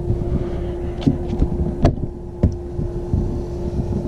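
A steady mechanical hum over a low rumble, with several dull knocks and thumps spread through it.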